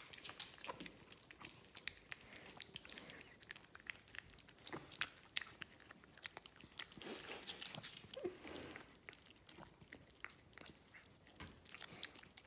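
A long-haired dachshund biting and chewing a soft, mushy dried persimmon from a hand: a faint, irregular run of small mouth clicks and smacks.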